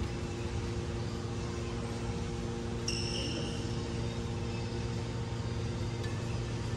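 Steady low mechanical hum from the hall's fans and air conditioning, with a brief high squeak about three seconds in.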